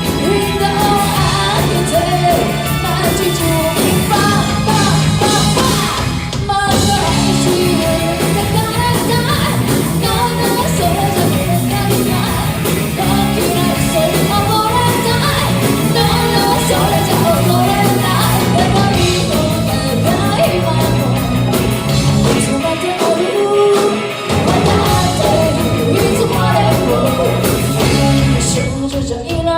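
Live rock band playing with a lead singer: a full band sound with a steady bass line under the sung vocal. The bass drops out for about two seconds late on, then comes back in.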